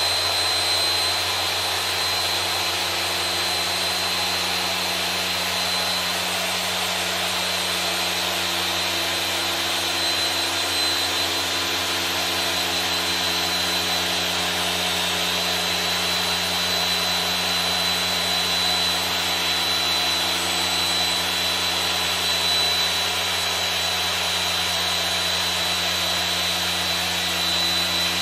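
Porter Cable 7424XP dual-action random-orbit polisher running steadily with its foam pad on car paint. The motor gives a constant whine with a thin high tone over a low hum.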